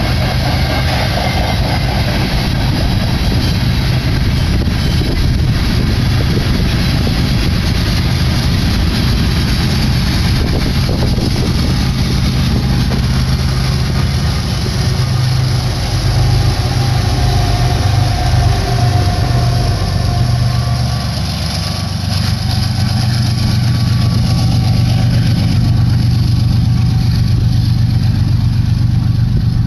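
Slow BNSF freight train rolling past: steady rumble of steel wheels on the rails under loaded tank cars, with a low diesel locomotive engine drone that is strongest near the end.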